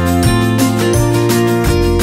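Background music led by plucked, acoustic-guitar-like notes over a steady bass line, the chords changing every half second or so.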